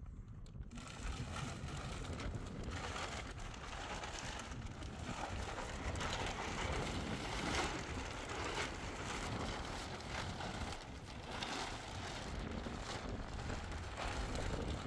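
Wind buffeting the microphone: a steady rushing noise with a low rumble, which sets in abruptly just under a second in.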